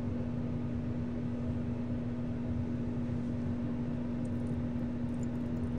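Bathroom exhaust fan running steadily: a constant motor hum over a rushing hiss.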